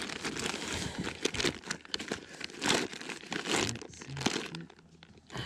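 Plastic soft-bait packets crinkling and rustling as hands rummage through a soft tackle bag, dying down near the end.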